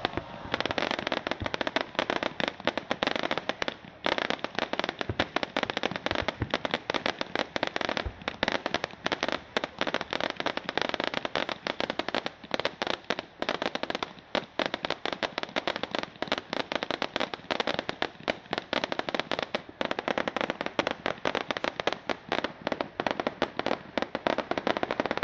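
Fireworks display: a dense, continuous barrage of crackling cracks and pops, with a few deeper booms in the first eight seconds.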